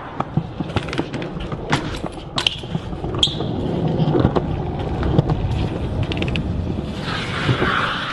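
BMX bike being ridden on concrete: tyres rolling, getting louder, with sharp clicks and knocks from the bike.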